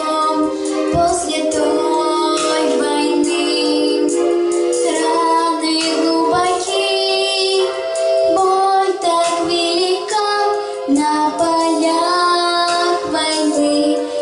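A girl singing over an instrumental backing track.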